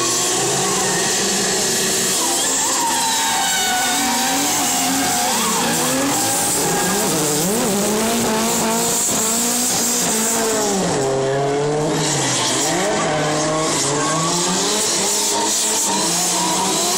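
Drift cars sliding sideways with their tyres squealing continuously. The engines are revved hard, their pitch rising and falling again and again as the drivers work the throttle.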